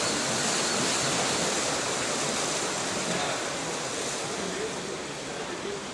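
Water splashing and churning as finned swimmers kick hard at the pool surface, a steady rush of noise that is loudest in the first second and eases slightly after.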